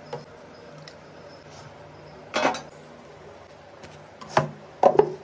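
Steel kitchen utensils and pots clinking while food is dished up, a ladle knocking against steel pots and a plate. There are a few separate clinks: the loudest comes about halfway through, and two more close together near the end.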